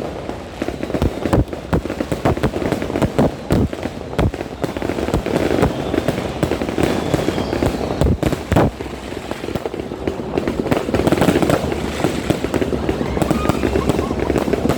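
Aerial fireworks bursting, many sharp bangs at irregular intervals, one after another.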